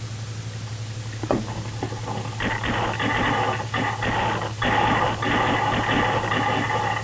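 Paintball marker firing close to the microphone: one sharp shot about a second in, then a dense, rapid string of shots over a steady whir for the last few seconds. A steady low hum runs underneath.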